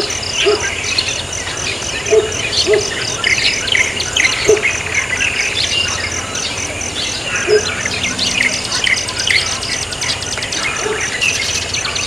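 Small birds chirping and tweeting in quick, scattered calls, over an insect's high, evenly pulsed trill, with a few short low notes among them.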